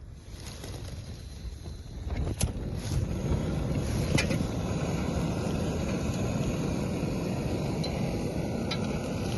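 Wind and rain in the mountains: a steady rushing noise that grows louder about two seconds in, with a few sharp clicks.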